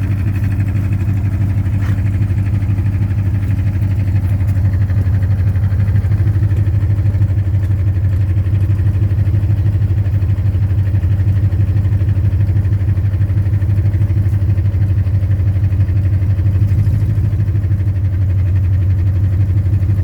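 2010 Ford Mustang GT's 4.6-litre V8 running steadily at idle with an even, repeating knock, which the owner has been told could be rod knock or lifter tick.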